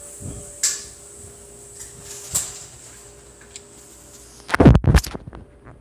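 A couple of sharp clicks, then a cluster of loud low knocks about four and a half seconds in, over a steady hum.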